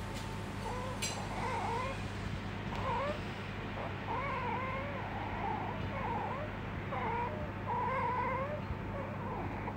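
Asian small-clawed otter whining: a run of short, wavering, squeaky calls, roughly one a second, some rising and falling in pitch, over a faint steady low hum.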